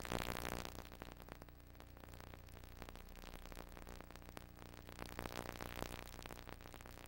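Faint steady hiss with a low electrical hum underneath: the recording's own background noise, with no programme sound.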